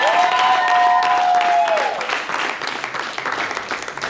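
Congregation clapping in applause, with two long high held tones over the first two seconds that glide up at the start and down at the end.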